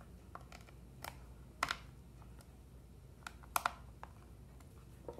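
Scattered light clicks and taps of a small screwdriver working the screws in a Garmin Drive 51 LM's plastic back case, with the sharpest clicks about a second and a half in and again about three and a half seconds in.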